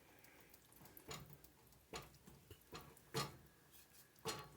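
Faint, irregular knocks of a spoon against a saucepan while a cheese sauce is stirred, about five taps over a few seconds, the loudest a little past the middle.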